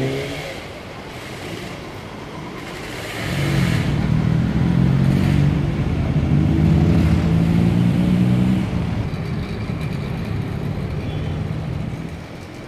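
A motor engine running with a low, steady hum that grows louder about three seconds in, holds for several seconds, then drops back and fades near the end.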